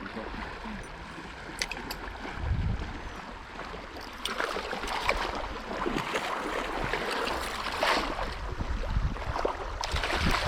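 Small trout stream running, with a couple of sharp clicks about a second and a half in and irregular splashing in the water from about four seconds on.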